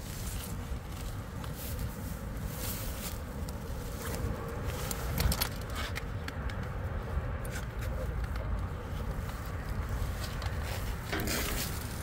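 Rustling and knocking of a bicycle being handled, with footsteps in grass close by, over a steady low rumble; one louder knock comes about five seconds in.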